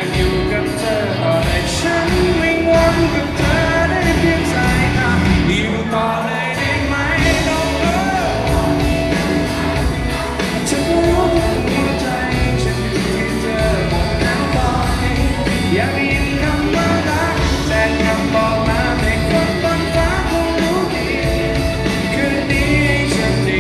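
Live band playing a rock-pop song with sung vocals: guitars, bass and drums under the singer. The bass drops out briefly about six seconds in.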